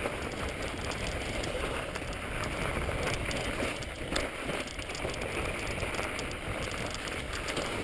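Mountain bike riding over snow-covered rocky singletrack: a steady crackling rush of tyres crunching through snow and the bike rattling over rocks, with many small clicks.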